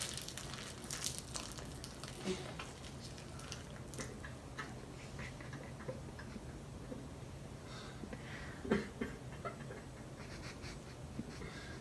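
Faint scattered rustles and small clicks from a fast-food bag and its contents being handled while eating, with one louder knock about nine seconds in, over a steady low room hum.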